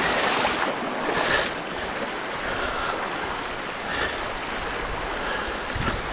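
Shallow mountain stream running over stones, a steady rush of water close by. A louder splashing stretch in the first second and a half.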